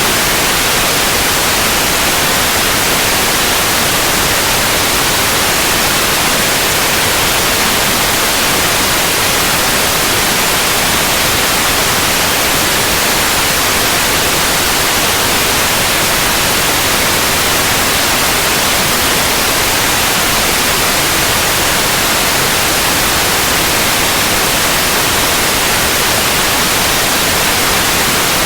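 Steady, continuous white noise: an even hiss across the whole range, brightest in the highs, with no change.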